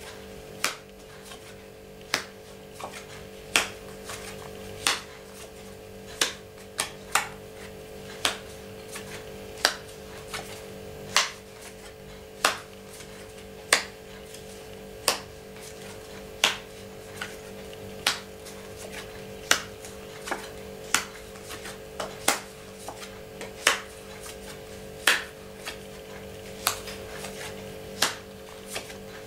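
Playing cards dealt one at a time onto a cloth-covered table, each card landing with a sharp snap about every second and a half, over a steady hum.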